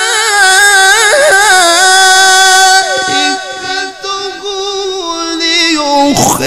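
A male Quran reciter's voice drawing out a long, ornamented melismatic note in the melodic mujawwad style. The note grows softer about halfway through and swells again near the end.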